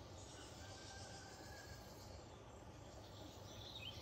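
Near silence: faint outdoor ambience with faint insect chirring and a low rumble.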